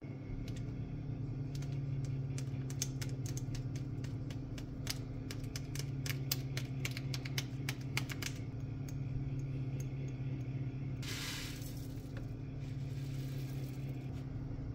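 Dried spices shaken from jars into a saucepan: a run of rapid small clicks and ticks for about seven seconds, then a brief hiss about eleven seconds in, over a steady low hum.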